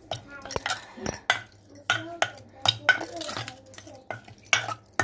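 A steel ladle knocking and scraping against the inside of a metal pressure cooker while stirring chickpea ragda, a run of irregular clinks.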